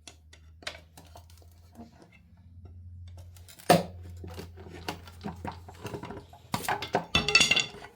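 Clinks, scrapes and knocks of a pry bar working the valve cover loose on a 2.2 L Ecotec engine, with one sharp knock about four seconds in and a flurry of clatter near the end as the cover comes free.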